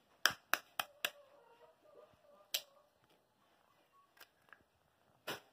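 An egg tapped about four times in quick succession against the rim of a mixing bowl to crack it, followed by a couple of single sharp clicks.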